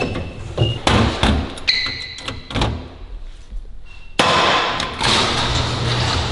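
Thumps and knocks from a metal rolling tool cabinet as its doors are shut with a person crouched inside. From about four seconds in, the cabinet's casters roll across a concrete floor with a steady rumble.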